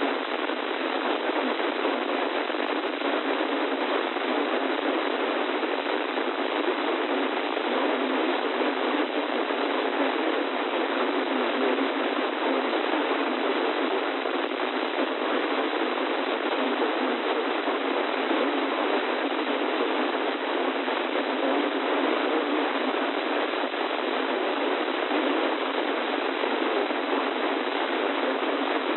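Steady radio static: an even FM hiss from a weather-radio receiver with no signal, cut off sharply below and above the narrow voice band.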